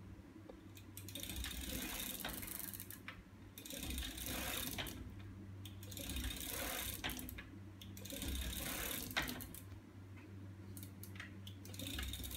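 Homemade magnet-assisted bicycle drive mechanism running, its chain, sprockets and linkages clattering and ticking in surges about every two seconds over a steady low hum.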